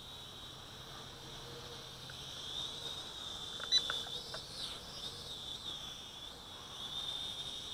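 High-pitched whine of a distant micro quadcopter's small motors, wavering and bending in pitch as the throttle changes. About halfway through, a short beep and a few clicks.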